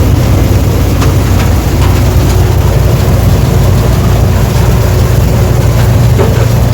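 Combine harvester running steadily at work in a soybean field: a loud, low engine drone with a faint steady whine from its machinery.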